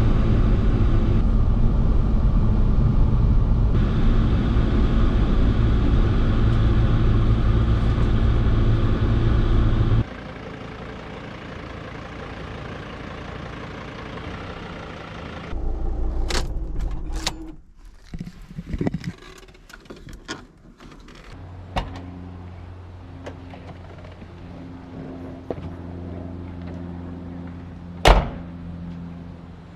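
Steady low rumble of a van on the move for about ten seconds, dropping away sharply. It is followed by a run of clunks and clicks, like doors or latches, about halfway through, then a low steady hum with one sharp knock near the end.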